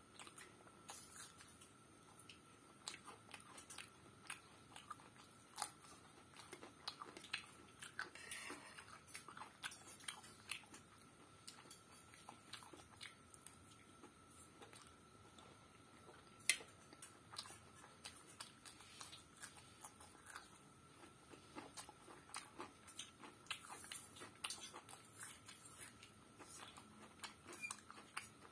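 Close-up chewing and mouth sounds of someone eating egg macaroni pasta, with scattered clicks of a metal spoon scraping and tapping a plate; one sharper click comes about halfway through.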